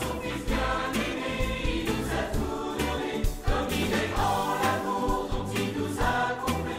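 Closing music: a choir singing.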